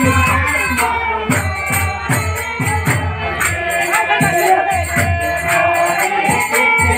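Live kirtan devotional music: hand cymbals jingle in a steady beat over low drum strokes, with singing.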